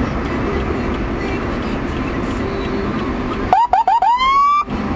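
Steady road and traffic noise, then about three and a half seconds in a police motorcycle siren gives four quick rising yelps and one longer rising whoop, about a second in all.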